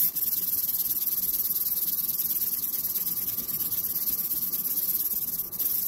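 An 800-grit sandpaper disc rubbed by hand in quick short strokes over a plastic headlight lens, giving a steady scratchy hiss with a brief break about five and a half seconds in. It is dry sanding, taking the rough, yellowed surface off the lens.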